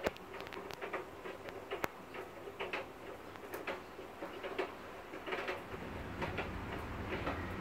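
Fingernails scratching and rubbing through a cat's fur: soft, irregular scratching and ticking sounds, with a low steady hum growing near the end.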